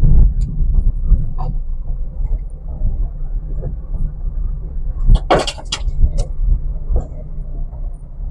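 Maruti Celerio hatchback driving slowly over a rocky riverbed: a steady low rumble of the engine and tyres crunching over loose stones, with scattered knocks. About five seconds in comes a loud, harsh scraping clatter, followed by a few sharp clicks.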